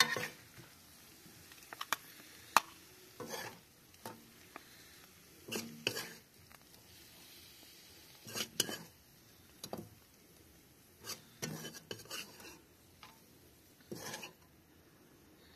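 Serving spoon scraping and clinking against the cooking pot as the finished curry is spooned out, in short, irregular strokes with pauses between.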